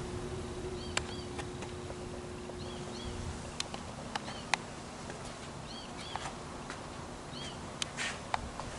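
A small bird calling over and over: short arched chirps, often two at a time, about every second. Under it a low steady hum, part of which stops about four seconds in, and a few scattered sharp clicks.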